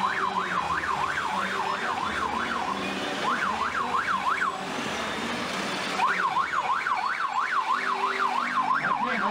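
Emergency vehicle siren in a fast yelp, rising and falling about three to four times a second and breaking off twice, over the sound of busy street traffic.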